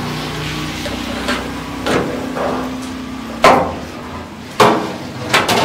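Metal ladle clanking against a large metal tray and the rim of a big cooking pot: a series of sharp, ringing knocks that grow louder, the loudest about three and a half and four and a half seconds in, then a quick double clank near the end, over steady background noise.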